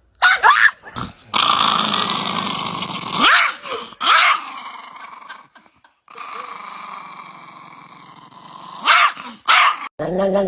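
Chihuahua growling in long rasping stretches, broken by sharp, high yapping barks: a few right at the start, one about four seconds in and two more near the end.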